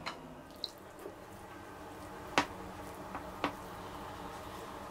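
Wooden spoon scooping and spreading thick béchamel sauce on a slice of white bread: a few soft wet squishes and light taps, the sharpest about halfway through.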